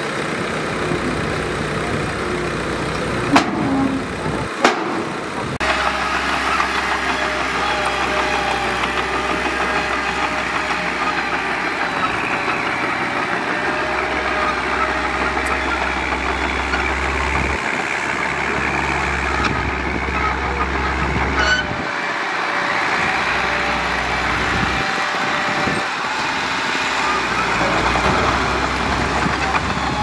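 Heavy diesel earth-moving machinery running steadily under load. There are two sharp clicks a few seconds in, and a steady whine joins the engine from about five seconds in.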